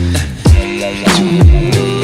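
Background music with a steady beat and deep bass drum hits that drop in pitch, about one a second.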